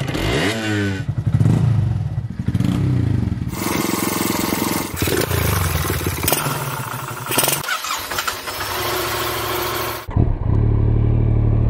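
Motorcycle engines in a string of short clips cut one after another. One revs up near the start, others run for a few seconds each, and near the end a steady engine note comes in suddenly.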